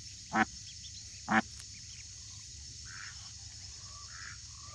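A duck quacking twice, two short loud harsh calls about a second apart near the start, with faint high peeping of a duckling.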